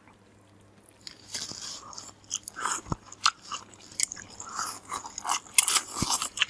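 People eating instant cup noodles quickly: irregular chewing and mouth noises with short clicks, starting about a second in.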